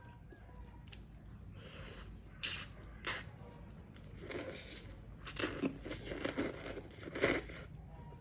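Close-miked eating of meatball noodle soup with chicken feet: two sharp clicks a little over half a second apart, then a run of short, wet mouth noises from chewing and biting.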